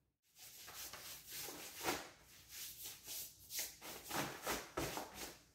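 Hands brushing and patting debris off a T-shirt: a quick, irregular run of soft rubbing swishes, starting about half a second in.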